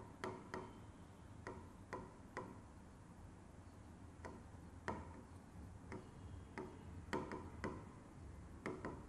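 Pen stylus tapping and clicking on the glass of an interactive display while handwriting is written: about a dozen faint, irregular clicks.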